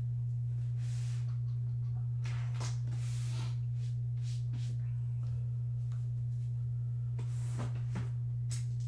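A steady low hum runs underneath throughout. Over it come several brief scrapes and knocks as cardboard card boxes are slid, stacked and picked up on a table.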